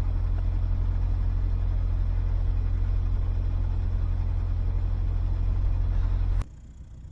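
Narrowboat's diesel engine running steadily while under way, a deep even drone. It cuts off suddenly about six seconds in, leaving a quieter, uneven low rumble.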